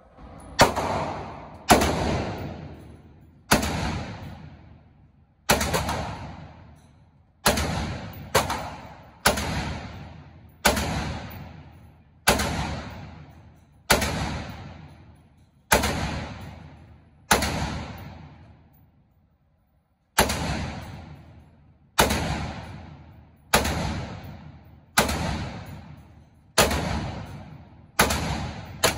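AR-15 rifle fired single shot after single shot, about one every one and a half to two seconds, each sharp crack trailing off in a long echo off the walls of an indoor range. There are about eighteen shots, with a short pause a little past halfway.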